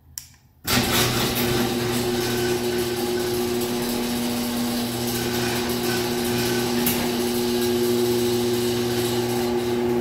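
Chamberlain garage door opener running steadily, its motor pulling the sectional door down its tracks. The sound starts abruptly about three-quarters of a second in.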